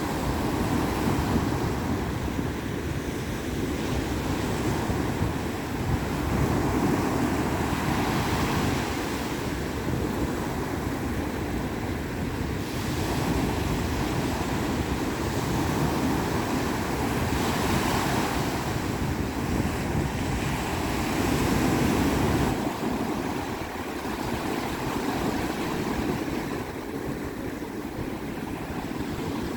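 Sea waves breaking and washing up the shore, surging and easing every few seconds, with wind buffeting the microphone as a low rumble.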